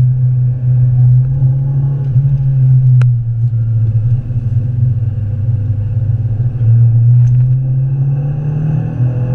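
Renault Clio 182's 2.0-litre four-cylinder engine running at fairly steady revs on track, heard from inside the cabin, its pitch rising slightly near the end. A single sharp click sounds about three seconds in.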